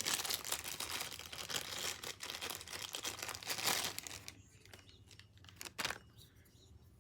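Packaging crinkling and rustling as the tripod mount adapter is handled and unwrapped, for about four seconds; then a few faint clicks and one sharper click near the end.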